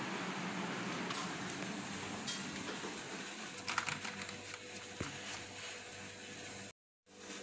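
A few light clicks and knocks as a toothpaste tube and toothbrushes are handled in a toothbrush holder, over a steady hiss. The sound cuts out briefly near the end.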